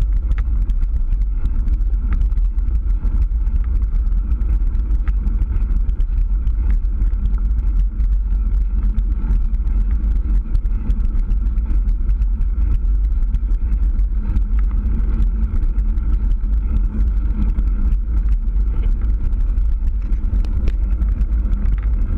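Steady low rumble of a mountain bike rolling on a rough, cracked paved road, with wind and road vibration buffeting the action camera's microphone and scattered small clicks and rattles from the bike.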